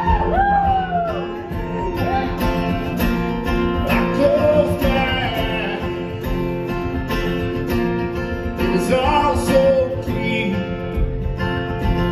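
Acoustic guitar strummed and picked in an instrumental passage of a live country-folk song.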